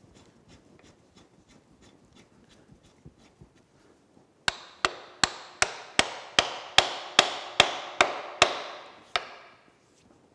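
Faint light clicks, then a hammer rapping a steel lock handle about a dozen times in a steady rhythm, each blow ringing briefly. The blows drive the tailstock lock of a Lucas horizontal boring mill tight.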